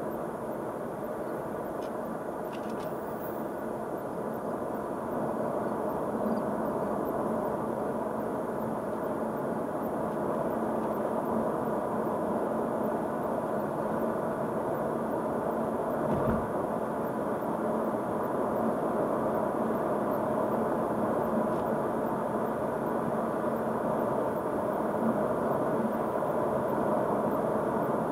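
Steady tyre and road noise with engine hum from a car driving on a rural road, heard inside the cabin. It grows a little louder over the first few seconds, and there is a single low thump about sixteen seconds in.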